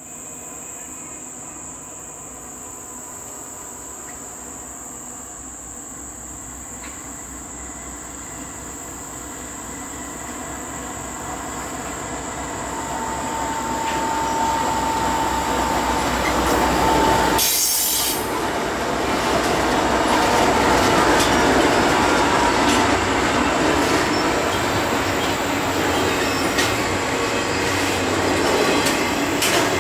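CSX intermodal freight train approaching and passing. Its diesel locomotives grow steadily louder over the first half, with a high whine as they go by. The double-stack container cars then roll past with loud, steady wheel and rail noise.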